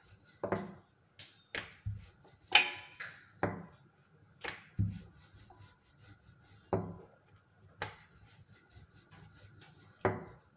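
Wooden rolling pin rolling dough out thin on a kitchen counter: soft rubbing as it is pushed back and forth, with short wooden knocks about once a second as the pin meets the counter.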